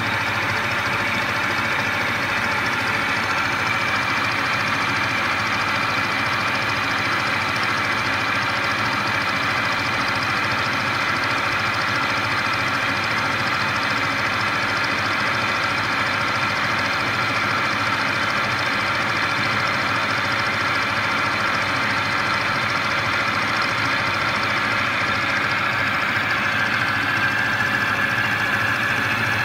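Mikron WF21C milling machine cutting a metal plate with a 10 mm HSS endmill: steady spindle and cutting noise with a constant high whine.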